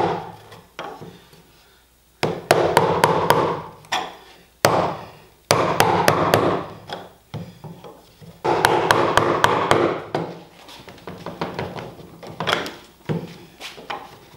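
Mallet striking a chisel in groups of quick taps as the chisel chops the rounded corners of a routed mortise square, using the wall of a router jig as a guide.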